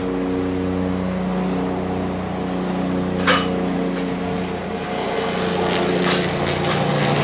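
Small power tool's motor running steadily while holes are made for a strap, with a few sharp clicks about three and six seconds in.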